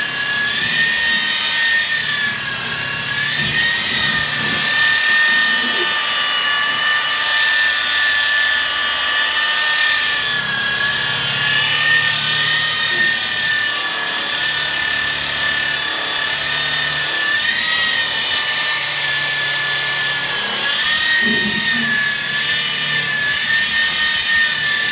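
DeWalt variable-speed rotary polisher with a wool pad, running steadily with a high whine while compounding oxidized boat gel coat. The whine dips briefly in pitch a few times.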